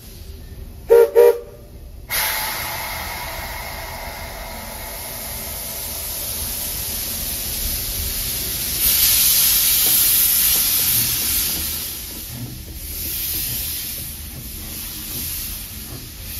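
A Baldwin-built narrow-gauge steam locomotive sounds two short whistle toots about a second in. Then steam starts hissing hard and keeps on, loudest around the middle, as the locomotive comes by.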